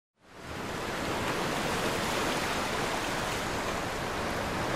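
Steady rushing of running water, like a stream or waterfall, fading in quickly from silence at the start.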